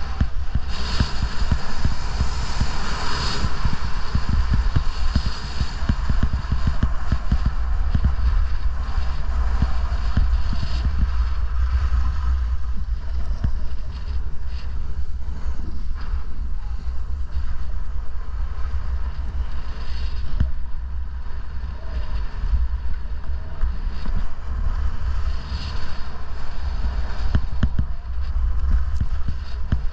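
Wind buffeting the microphone of a camera carried by a skier in motion, a steady heavy rumble, over the continuous hiss and scrape of skis carving on packed snow.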